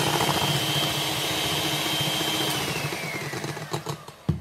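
Electric hand mixer running steadily with its beaters whirring through egg yolks in a bowl, then switched off after about three seconds, its whine falling in pitch as the motor winds down. A few clicks and one sharp knock near the end.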